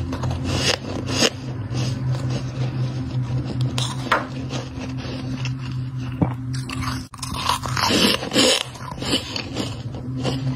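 Freezer frost being crunched and scraped close to the microphone: irregular crunches and scrapes, loudest a couple of seconds from the end, over a steady low hum.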